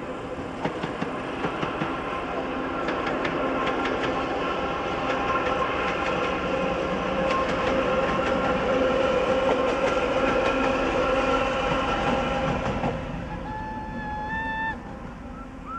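ChME3T shunting diesel locomotive running light past, its six-cylinder diesel engine running steadily and its wheels clicking over the rail joints. The sound is loudest as it passes and drops away after about thirteen seconds as it moves off.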